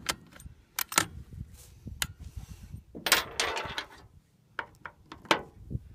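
Remington 700 bolt action being worked by hand after a shot: a string of short metallic clicks and clacks as the bolt is lifted, drawn back and pushed home, with a brief rustling scrape about three seconds in.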